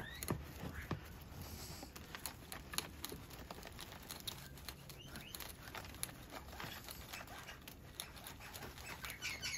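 Faint, irregular scratching and crumbling: a root hook rakes black soil out of a juniper bonsai's root ball, and loose soil patters into a tray below.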